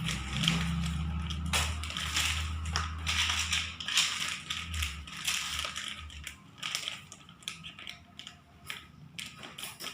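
Plastic packaging of a kinetic sand pack being handled and opened, crinkling and crackling in irregular bursts.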